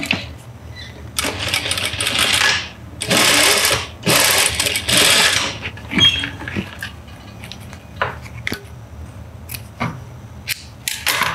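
Industrial sewing machine stitching in three short runs of about a second each, over a steady low motor hum. After that come scattered light clicks and snips as the thread is cut with scissors.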